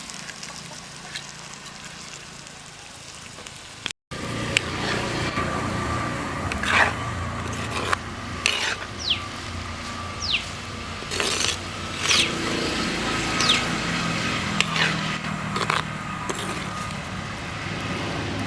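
Snake gourd curry frying in a pan with the spices, sizzling as it is stirred, with the spoon scraping and clinking against the pan. It is quieter at first and louder from about four seconds in.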